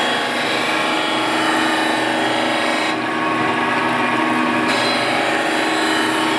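Surface grinder's abrasive wheel grinding the worn guideways of a machine-tool bed under a spray of emulsion coolant, taking a light pass to clear scoring. It is a steady grinding hiss with a running machine hum, and the high hiss drops for about two seconds midway.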